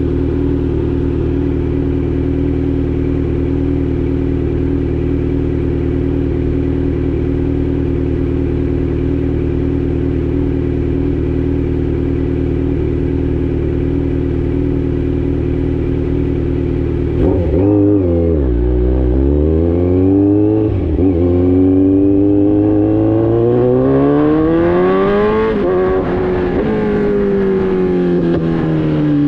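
Kawasaki Z900 inline-four through an Austin Racing full exhaust, holding a steady note for a long stretch. The pitch then dips sharply and climbs in a long rise as the bike accelerates, before falling away as the revs drop near the end.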